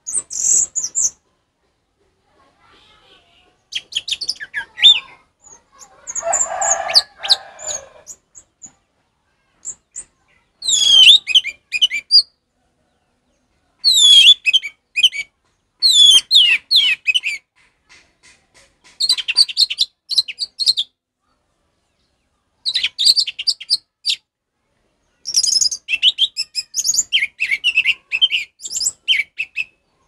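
Orange-headed thrush (anis merah) singing in the loud, full 'ngeplong' style: about ten short phrases of rapid, high, varied whistled notes, separated by pauses of a second or two.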